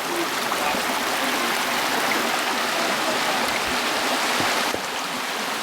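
Mountain creek water rushing steadily, a little softer near the end.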